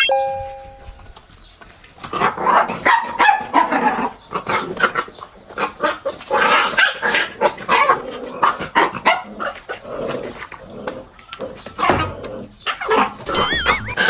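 Several corgi puppies barking and yipping over one another in a busy, continuous chorus that starts about two seconds in. At the very start there is a single bell-like ding that rings out for about a second.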